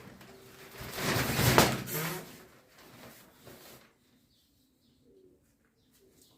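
A low, throaty animal call lasting about a second, starting about a second in, with a noisy, hissing edge.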